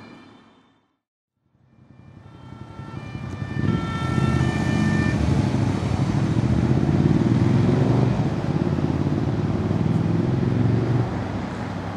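Road traffic: vehicle engines and tyres in a loud low rumble. At the start the sound fades out and back in, and a siren's steady alternating tones are heard for the first few seconds.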